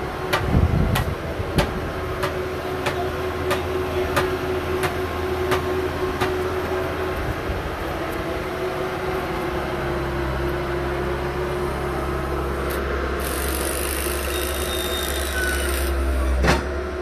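Concrete mixer truck's diesel engine running steadily, a constant drone with a low hum that grows a little louder about ten seconds in. Sharp clicks repeat about every two-thirds of a second through the first seven seconds.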